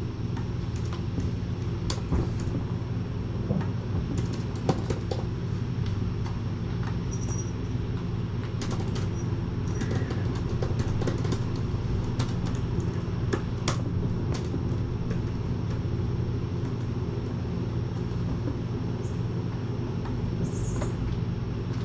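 A steady low hum, with scattered light clicks and taps at irregular moments.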